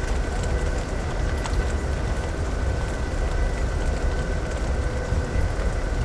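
Amtrak Empire Builder passenger car heard from inside while the train runs: a steady low rumble with a constant hum, and a few faint scattered ticks of storm precipitation striking the window.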